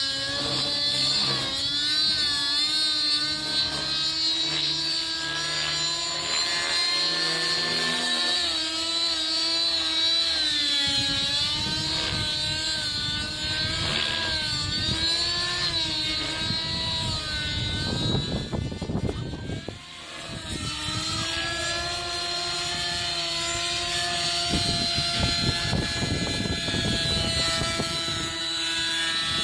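Nitro RC helicopter (TSA Infusion 600N Pro) flying aerobatics: the glow-fuel two-stroke engine's whine and the rotor noise waver up and down in pitch through the manoeuvres, fading briefly about two-thirds of the way in before coming back.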